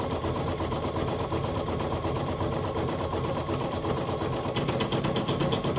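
Brother Innov-is NS1250E embroidery machine running steadily, its needle making rapid, even stitches as it sews the outline that tacks a fabric piece down in the hoop.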